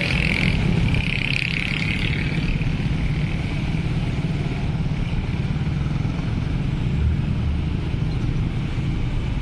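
Motorcycle and car engines running steadily as road traffic drives over a railway level crossing. A higher hiss rides on top for the first couple of seconds and then fades.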